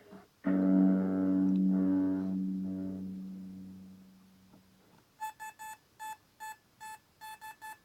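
Stored sound effects played back through a JQ6500 sound effects module's speaker: first a sustained ringing musical tone that fades away over about four seconds, then a quick run of short beeps like telephone keypad tones.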